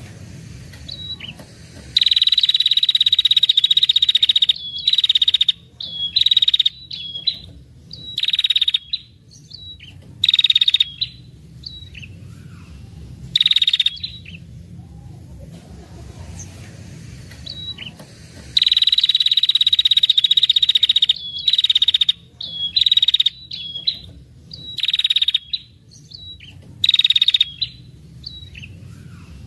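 Female prenjak kepala merah songbird giving its long rattling 'ngetir' trill, a lure call that draws in males. Two long buzzing trills of about two and a half seconds, the first about two seconds in and the second past the middle, are separated by many short rattling bursts.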